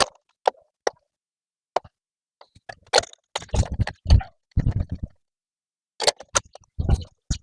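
Scattered sharp clicks and knocks of hand tools and parts being handled during a spark-plug change, with busier runs of clicks and duller thumps around the middle and again near the end.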